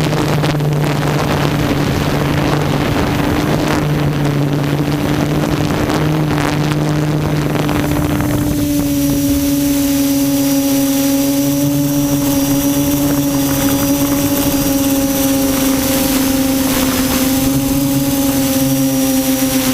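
QAV400 quadcopter's electric motors and propellers whining steadily in flight. A rushing noise lies over the whine and drops away about eight seconds in.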